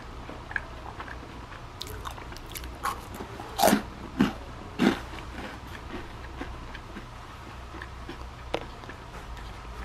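Someone biting and chewing a crisp garlic rusk made from pan-toasted bread crusts. A few small crunches come first, then three loud crunches between about three and a half and five seconds in, and one fainter crunch near the end.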